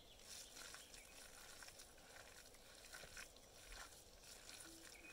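Faint, soft squelching and rubbing of bare hands kneading wet cow dung, mixing it until it turns soft for smearing a floor, in otherwise near silence.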